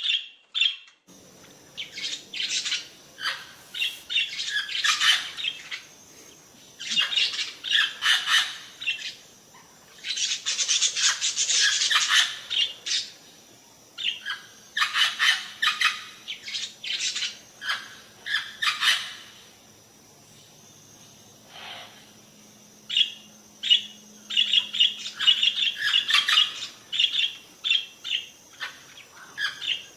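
A bird calling in bouts of rapid, harsh chirps and squawks. The bouts are separated by gaps of a second or two.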